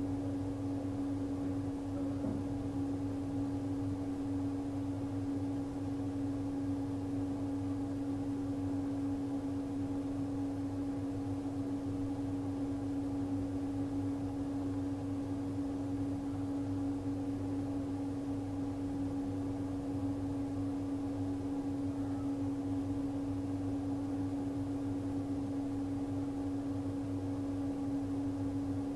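Steady background hum with a constant low tone and faint hiss, unchanging, with no distinct events.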